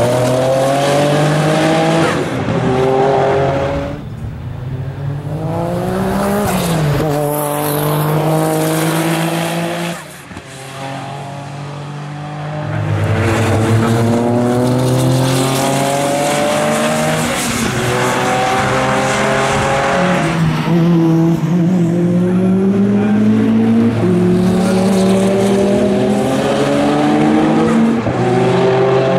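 Noble M12 RSR race car's twin-turbo V6 accelerating hard, its pitch climbing and dropping back at each gear change, over and over through several passes. It fades twice as the car pulls away, then comes back loud.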